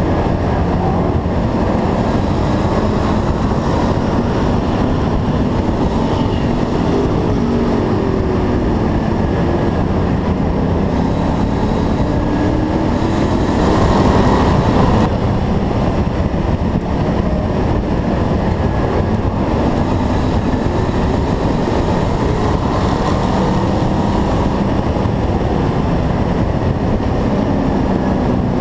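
Stock car race engine running hard on an oval track, loud and continuous. Its pitch slowly rises and falls through the laps as the throttle is lifted and reapplied. It gets briefly louder about fourteen seconds in.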